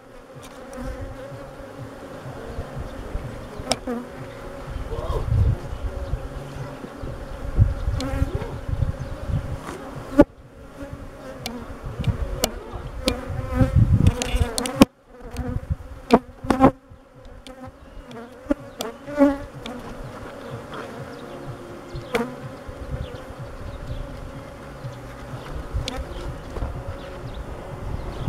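Honeybees buzzing around an open hive, a steady hum, with occasional knocks and rustles as cloth covers are laid over the frames. Gusts of rumble, like wind on the microphone, come and go, strongest around the middle.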